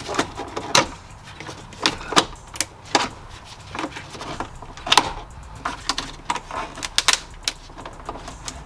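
Irregular sharp plastic clicks and knocks as parts of a 1983 Oldsmobile Cutlass's brittle plastic dashboard are pried loose and popped out by hand.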